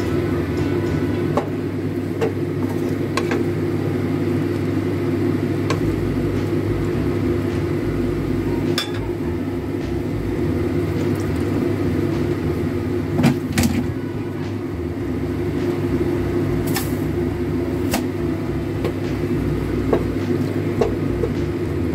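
Pork ribs simmering in broth in a wok over a steady low hum, with a few sharp clicks of a wooden spoon against the pan around the middle and near the end.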